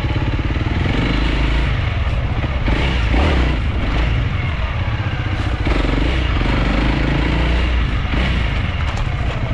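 Honda CRF300L dual-sport motorcycle's single-cylinder four-stroke engine running as the bike is ridden, revving up and down with the throttle.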